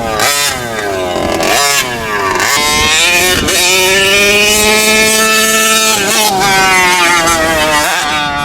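Gas engine of a large-scale RC monster truck revving up and down as it is driven, held at high revs for a couple of seconds in the middle before dropping and picking up again.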